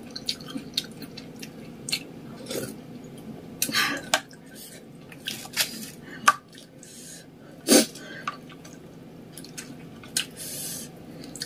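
Close-up eating sounds: chopsticks and a plastic spoon clicking against a plastic bowl of ramen soup, with slurping and chewing. Several louder slurps, around four and eight seconds in.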